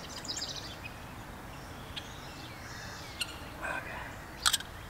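Quiet outdoor background with birds chirping, broken by a few light clicks and knocks as PVC pipe fittings are handled, the sharpest near the end.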